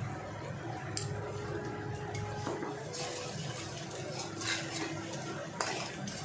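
A metal spatula stirs and scrapes spice paste frying in oil in a metal kadai. There are a couple of sharp clinks, and the scraping is strongest from about three seconds in, over a low steady hum.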